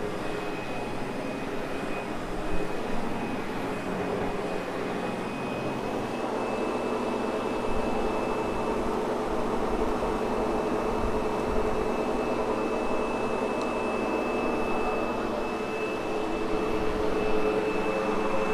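Sebo X8 upright vacuum cleaner running steadily on carpet: a constant rush of air with a steady high motor whine over it.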